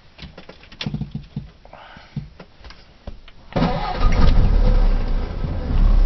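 1950s British car's engine being started, heard from inside the cabin: a few light clicks, then at about three and a half seconds the starter turns it over and it catches within about half a second and keeps running steadily with a deep rumble.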